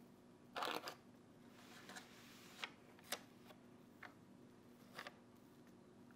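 Metal offset spatula spreading and smoothing a thick cheese filling in a parchment-lined springform pan, faint. There is a brief scraping rustle just over half a second in, then several soft, separate clicks and taps.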